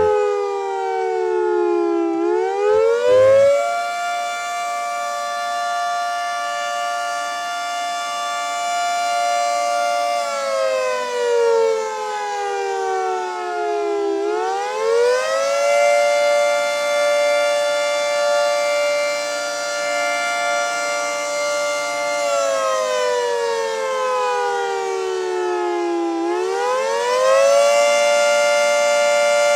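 Federal Signal 3T22A three-tone outdoor warning siren sounding the attack signal: its chord holds high for about six seconds, slides slowly down over about four, then climbs quickly back up, repeating about every twelve seconds.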